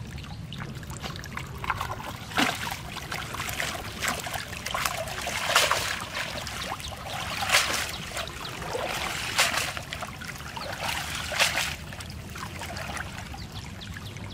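Water splashing and sloshing as a wet cast net is hauled in and swished through shallow pond water, in a string of separate splashes about every one to two seconds over a low steady rumble.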